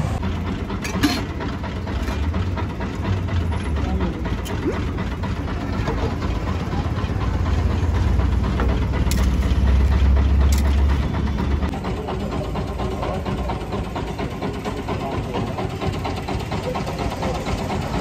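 An engine running steadily with a loud low hum amid street noise; the hum drops away suddenly about twelve seconds in.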